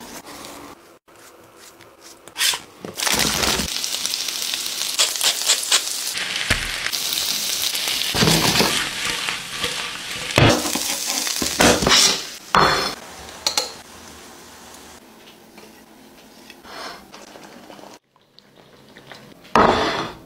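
Food sizzling as it fries in a pan, with scrapes and clatters of stirring and tossing. The sizzle is loud for about ten seconds, then drops to a low hiss. A brief loud noise comes just before the end.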